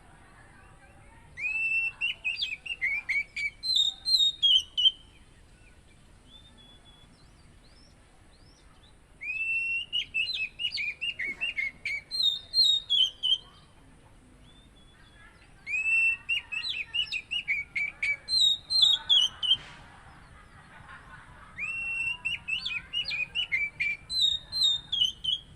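Oriental magpie-robin (kacer) singing in full voice: four loud phrases of rapid, varied whistled notes, each opening with a rising note, with pauses of a few seconds between them.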